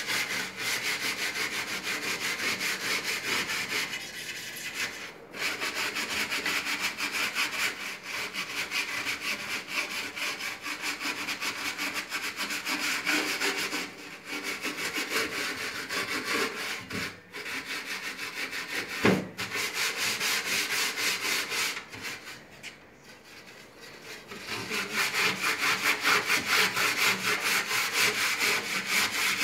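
Hand scrubbing the metal inside of a countertop mini oven, fast back-and-forth rubbing strokes over grime softened by an overnight soak in baking soda, lemon and degreaser. The scrubbing stops briefly a few times, longest for about two seconds shortly before the end.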